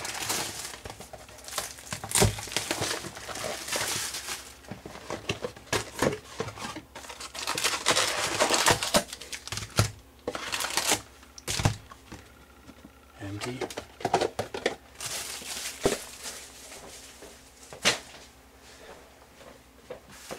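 Foil-wrapped trading-card packs crinkling as they are pulled from a cardboard box and stacked, with rustling cardboard and sharp knocks of the packs and box on a countertop.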